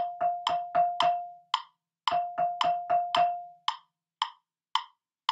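Wooden-barred keyboard percussion instrument struck with yarn mallets, playing quick runs of repeated notes on one ringing pitch over a steady click beat of about two clicks a second. The notes stop in the last second or so, leaving only the clicks.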